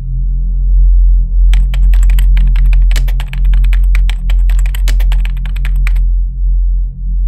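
Rapid computer-keyboard typing, a fast run of clicks starting about a second and a half in and stopping about a second before the end, over a low ambient electronic drone.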